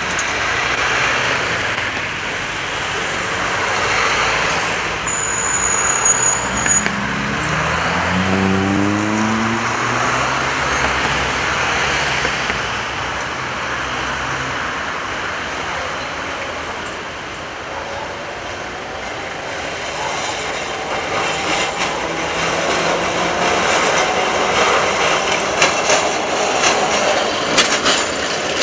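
Street traffic: cars driving past close by and a T8M-300 tram rolling past on its tracks. About eight seconds in, a passing vehicle speeds up with a rising engine pitch, and there is light clattering near the end.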